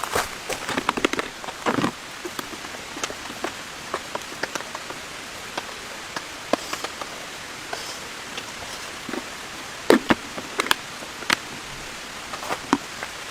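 Rain falling: a steady hiss with scattered sharp taps of single drops, irregular in timing, and a cluster of louder taps about ten seconds in.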